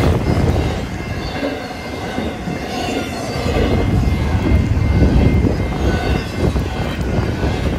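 Double-stack intermodal freight train passing at speed: a continuous rumble of the cars with wheels clattering over the rails, swelling and easing as the cars go by.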